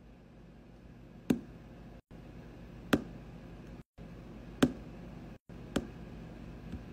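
Fingertip taps on an iPhone touchscreen: four sharp taps roughly a second to a second and a half apart, then a fainter one near the end, over a steady low room hum. The sound cuts out for an instant three times between the taps.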